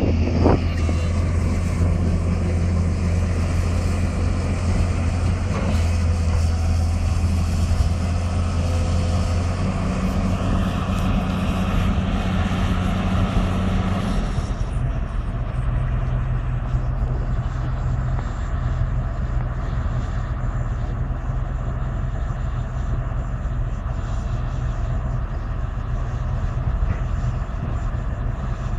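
Heavy diesel engines of a Lonking crawler excavator and a Volvo motor grader running steadily at work. About halfway through, the engine note changes abruptly to a different steady hum.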